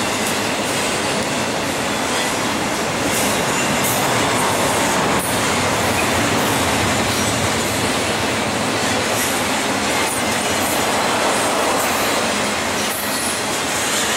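Double-stack intermodal freight train's container well cars rolling past: a steady noise of steel wheels on rail, with occasional faint clicks.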